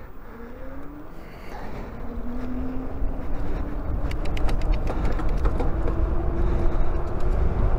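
Electric bike's rear hub motor accelerating hard from a standstill under full power, its whine rising steadily in pitch, with wind rumble on the microphone building as speed climbs. A short run of light ticks comes about four to five seconds in.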